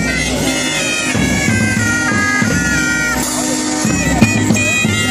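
Marching street band playing: shrill, reedy pipes carry a melody that steps from note to note over a steady drone, with drum beats and cymbal strokes, one sharp hit standing out near the end.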